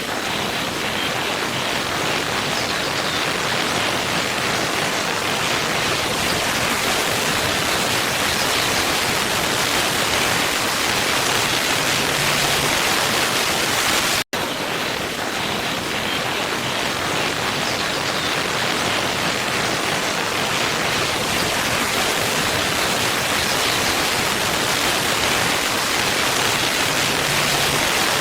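Waterfall: a steady rush of falling water. It cuts out for an instant about halfway through, where the same stretch of sound starts over.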